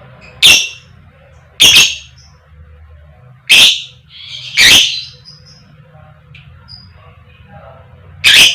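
Fighter lovebird giving its 'koek koek' call: five loud, short, high-pitched calls with irregular gaps, the longest gap of over three seconds before the last.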